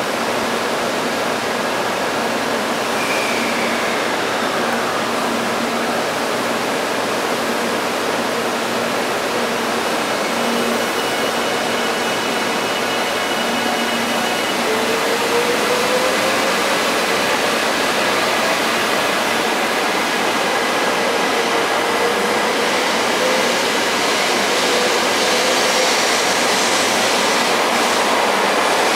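JR Central 300 series Shinkansen train pulling out slowly: a steady rushing hiss of the train's equipment, with a faint motor whine that rises slowly in pitch from about halfway as the train gathers speed, getting a little louder near the end.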